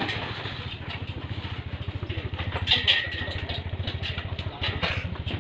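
An engine idling, a steady rapid low pulsing, with scattered light clicks and a brief louder clatter about three seconds in.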